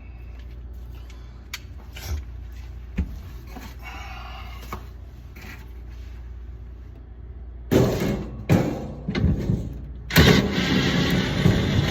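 Scattered knocks, then two loud spells of clattering and scraping, as of parts being handled during a repair, over a steady low hum.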